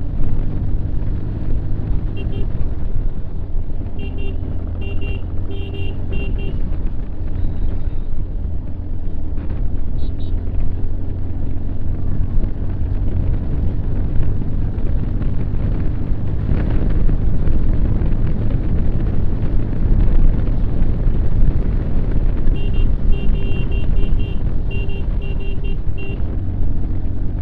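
Motorcycle running at road speed with a steady low rush of engine and wind. A horn sounds in clusters of short repeated beeps, once a few seconds in and again near the end.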